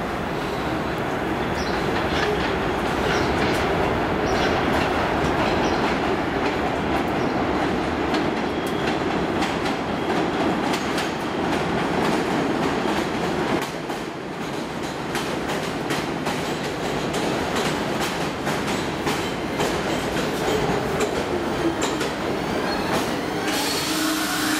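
Kawasaki R62 subway train pulling into the station and slowing to a stop: steady rumble of steel wheels on the rails, with many sharp clicks as the wheels cross rail joints.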